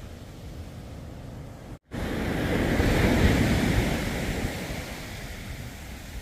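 Sea surf breaking on a sandy beach with wind blowing across the microphone. After a brief silent gap about two seconds in, the rush swells loudly, then eases off toward the end.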